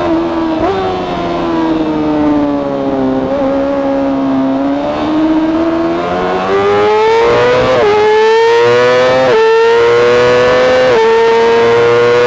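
Yamaha R6 inline-four racing engine with an Akrapovic exhaust, heard onboard at race pace. Its pitch falls as the bike slows for a corner, with a brief blip about a second in. From about five seconds it revs up under hard acceleration, with three quick upshifts about a second and a half apart, each a sudden drop in pitch followed by a fresh climb.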